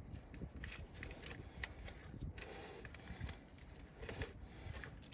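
Faint, scattered small clicks and rustles of hands handling parts and a drain hose.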